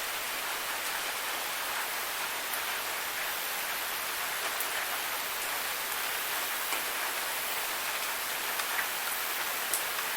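Waterfall water falling and splashing: a steady, even hiss with a few faint ticks of drops.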